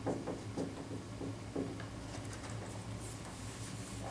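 Dry-erase marker writing on a whiteboard, a run of short scratchy strokes in the first second and a half, then a whiteboard eraser rubbing across the board from about halfway on, over a steady low room hum.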